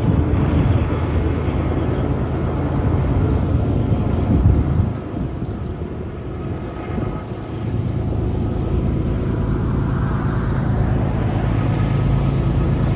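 Diesel locomotives pulling a BNSF double-stack intermodal train: a steady low engine drone that dips briefly about five seconds in, then swells again as the train draws nearer.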